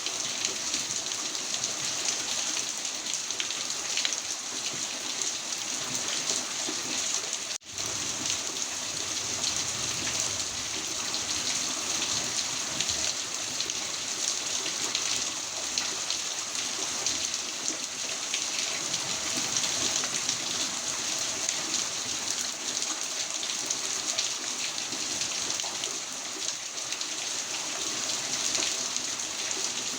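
Heavy rain falling steadily, an even hiss of many drops, which cuts out for an instant about a quarter of the way through.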